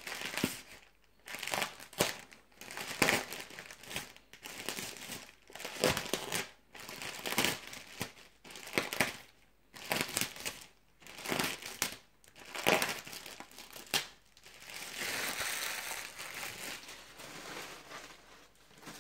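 Packaging being crumpled and crinkled by hand in short bursts, roughly one a second, with a longer stretch of continuous crinkling near the end. It is the packing material being cleared out of the box to be thrown away.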